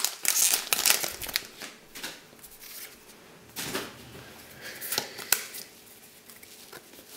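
Foil booster-pack wrapper crinkling in the hands for about a second and a half, then trading cards being slid and flicked through one by one, with a few separate soft rustles and clicks.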